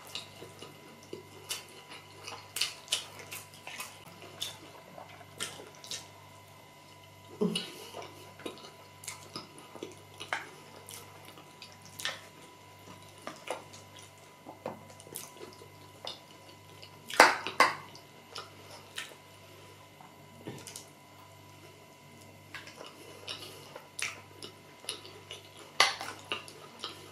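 Close-up eating sounds: wet mouth clicks and smacks while chewing a mouthful of rice and beans porridge, mixed with a plastic spoon tapping and scraping a glass dish. The loudest clatter comes about 17 seconds in.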